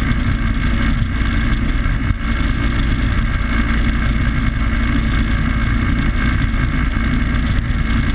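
Rigid inflatable powerboat running at speed through choppy water: a steady loud mix of engine noise, wind rushing over the microphone and water rushing past the hull.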